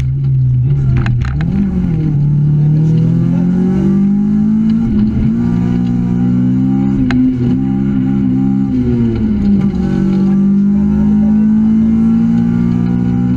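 Honda Civic rally car's four-cylinder engine, heard from inside the cabin, pulling hard at stage pace. Its pitch climbs steadily for several seconds, drops sharply about nine seconds in, then holds high, with a few sharp clicks along the way.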